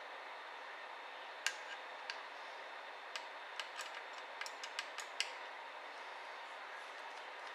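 About ten light, sharp clicks and taps of small laptop parts and tools being handled during disassembly, bunched in the middle, over a steady hiss.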